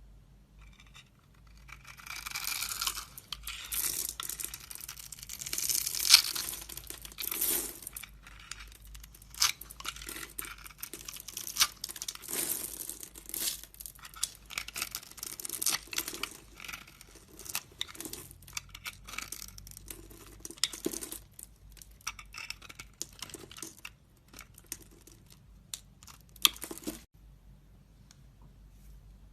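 A blade carving into a bar of soap: crisp, crackly scraping and crunching, dense and continuous for the first several seconds, then a long run of short, separate cutting strokes that stops shortly before the end.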